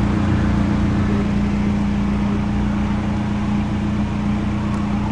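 Steady hum of a car running, heard from inside its cabin, with one strong low tone held throughout over a low rumble.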